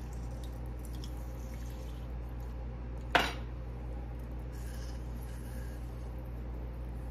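A hand-held lemon squeezer worked over a blender cup of smoothie, with one sharp knock about three seconds in, over a steady low hum.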